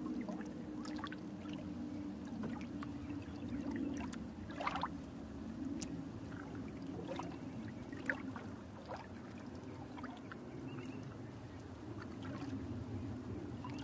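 Outdoor nature ambience: a low steady rumbling hiss with scattered short bird chirps, the most noticeable about five and eight seconds in.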